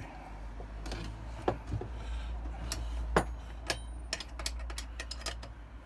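A 19 mm steel spanner clicking and clinking on the spindle nut of a bench polishing machine as the nut is tightened, a run of sharp, irregular clicks with the loudest about three seconds in.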